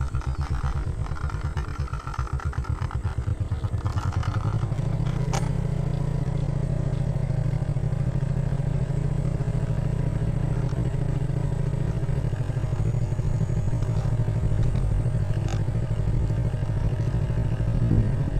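Small motorcycle engine running as it rides along, with a steady low pulsing note that shifts up about four and a half seconds in as it speeds up; a couple of light clicks.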